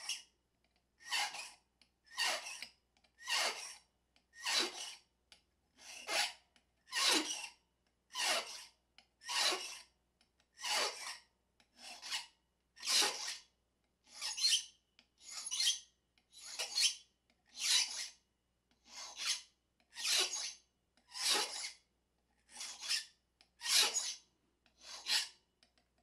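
Pippin file rasping across a key blank in slow, even strokes, about one a second. It is cutting deeper at the pin positions that left impression marks, taking the cuts down toward the next depth.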